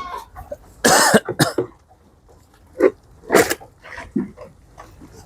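Short harsh coughs: a pair about a second in, another a little past three seconds, and a few fainter ones between.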